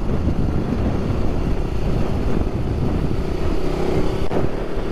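Motorcycle running on the road with heavy wind rush over the microphone; a steady engine hum comes through in the second half.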